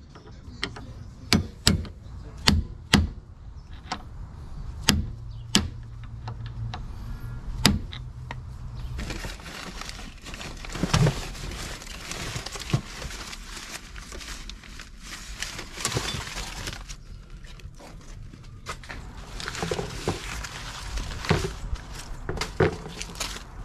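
Hands working on metal car parts: a series of sharp metallic clinks and knocks, then a longer stretch of rustling and scraping, dotted with small clicks.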